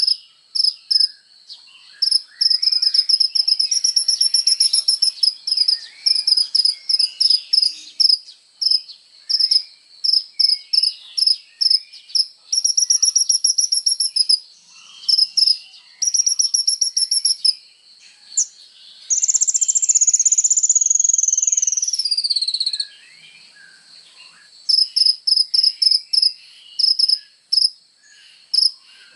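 Sunbird known in Indonesia as 'kolibri ninja' singing: fast strings of high chirps and rattling trills, with one long whistled note about nineteen seconds in that slides down before it stops.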